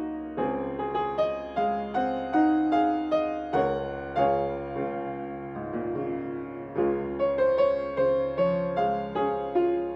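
Solo acoustic piano playing a slow melody over chords. A new note or chord is struck about every half second, with a chord held for about two seconds in the middle.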